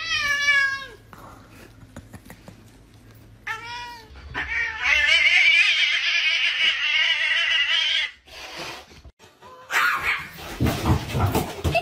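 Domestic cat yowling and meowing: a short wavering cry at the start, a brief meow about three and a half seconds in, then one long drawn-out yowl lasting about three seconds. A stretch of rough noise follows near the end.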